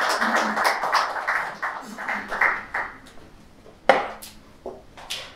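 Audience applause, a mass of quick claps, dying away about three seconds in. A few sharp knocks follow near the end.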